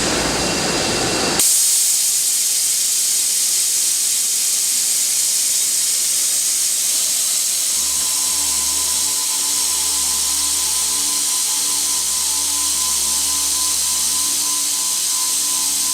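Delta Machinery DT-100 circular sawing machine at work, giving off a loud, steady hiss that starts suddenly about a second and a half in. About halfway through, a low motor hum with a steady tone joins it.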